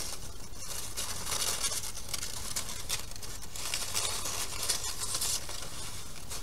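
Construction-paper strips rustling and crinkling as they are bent and threaded in and out of a paper band, in a few soft stretches.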